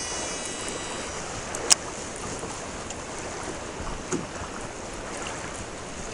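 Steady wind and water noise around a small fishing boat drifting with its engine shut off, with one sharp click about two seconds in.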